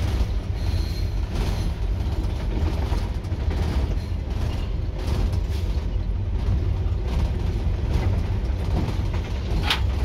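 Cab noise of a moving GE diesel-electric locomotive: a steady, loud low rumble from the engine and running gear, with creaks and rattles of the cab fittings. A brief high squeak cuts through near the end.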